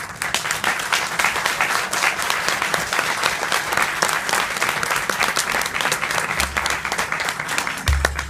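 A crowd applauding, many hands clapping at once in a dense, steady patter. A low steady tone joins briefly near the end as the clapping thins out.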